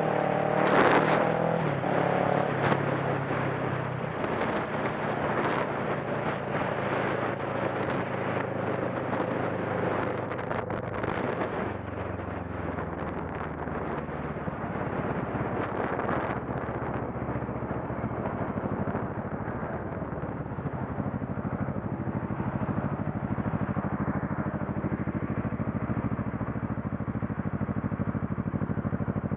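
Motorcycle engine running under way, with wind rush over the bike-mounted microphone. The engine note falls as the bike slows, then runs steady and low for the last several seconds as it rolls up to stopped traffic.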